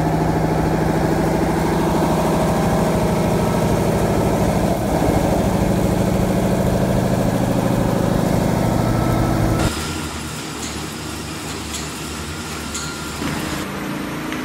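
CNC machining center milling a forged steel crane wheel under coolant spray: a steady machine hum with a low pitched drone. About ten seconds in it stops abruptly and a quieter, different background noise follows.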